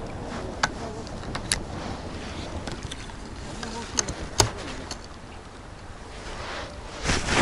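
Steady outdoor rush of wind on the microphone by a river, with a few sharp clicks and knocks from handling the fishing rod, reel and camera, the loudest about four and a half seconds in. A louder rushing gust comes near the end.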